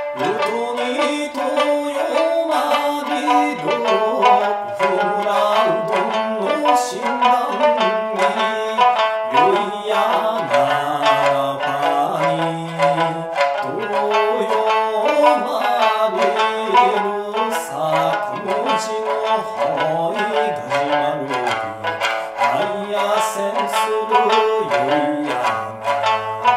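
Okinawan sanshin (three-stringed snakeskin lute) tuned A–D–A, played in a fast kachāshī rhythm of quick plucked notes, with a man singing an Okinawan folk song over it.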